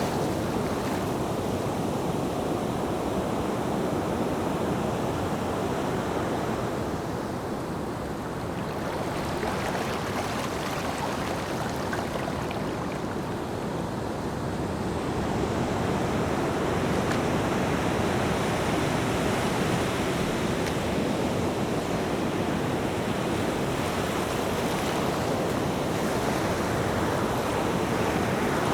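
Ocean surf: a continuous rush of breaking and washing waves, easing a little for a few seconds in the middle and then swelling again.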